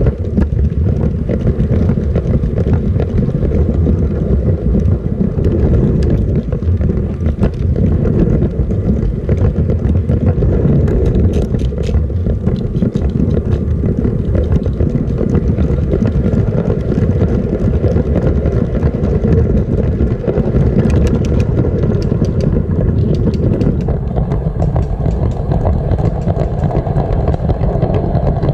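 LEGO train running on plastic LEGO track, heard from a GoPro riding on the train: a loud, steady rumble and rattle of the wheels and motor, with occasional sharp clicks.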